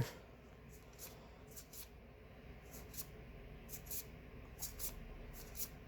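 Faint, irregular soft clicks and rustles of Magic: The Gathering cards being slid off a stack and set down into piles.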